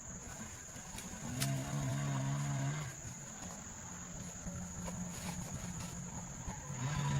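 Steady high-pitched insect chirring, like crickets, throughout. A low hum starts about a second in and lasts about a second and a half.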